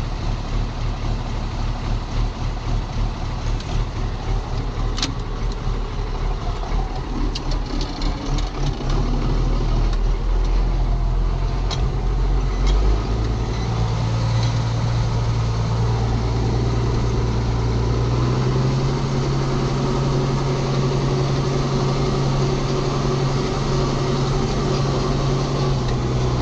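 Ford TW tractor's six-cylinder diesel engine running, with a few sharp clicks and clunks in the first half. About a third of the way in the engine gets louder, and its revs rise to a higher steady speed in the second half.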